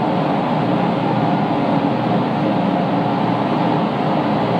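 Cooking burner under a large aluminium pot burning with a loud, steady rushing noise.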